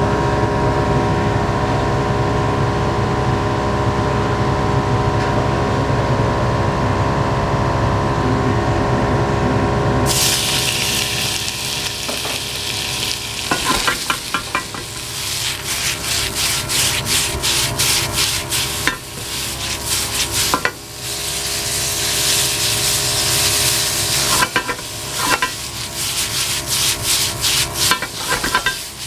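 A steady hum and roar from the gas stove while oil heats in an empty black iron frying pan. About ten seconds in, thin slices of meat hit the hot oil with a sudden loud sizzle. The sizzle keeps going while cooking chopsticks stir and scrape the meat around the pan, in many short scrapes.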